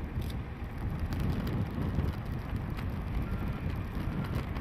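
A JNR DD14 diesel rotary snowplow locomotive at work, its rotary blower cutting into deep snow and throwing it aside. The engines and blower make a steady low rumble.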